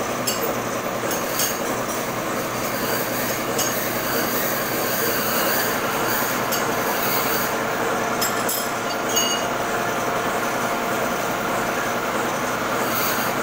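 Metal-turning lathe running with a large metal workpiece spinning in its chuck: steady machine noise with faint high tones, broken by a few sharp metallic clinks.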